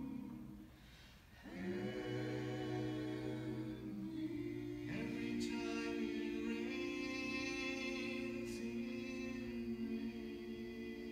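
Barbershop quartet of four men singing a cappella in four-part harmony, holding long sustained chords. There is a brief break about a second in, after which the singers come back in and move through a few chord changes.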